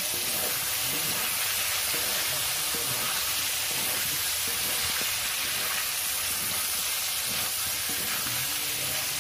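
Chicken pieces frying in hot oil with onions and chillies in a kadai, a steady sizzle, while being stirred with a metal spatula.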